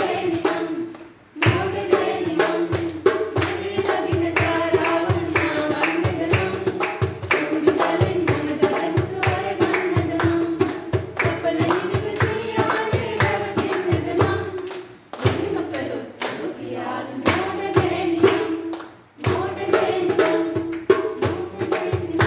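A woman singing a song to a hand drum beaten with bare hands, with people clapping along. The singing stops briefly between lines.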